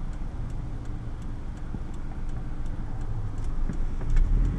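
Car interior: steady engine and road noise with a regular ticking about three times a second, like a turn signal's relay.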